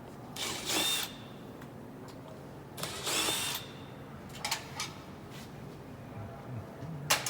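Power drill run in two short bursts of about half a second each, a couple of seconds apart. A few light clicks and knocks follow.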